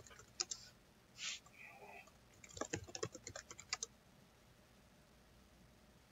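Typing on a computer keyboard: a few keystrokes near the start, a brief hiss about a second in, then a quick run of keystrokes around the middle, followed by faint room tone.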